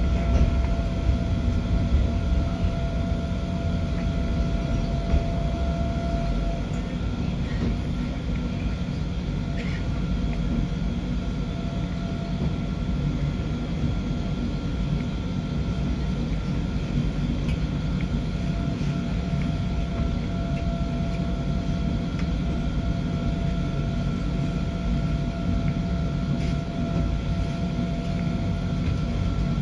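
Stuttgart Zacke rack railway car running downhill on its rack track, a steady low rumble with a constant whine on top and a few faint clicks.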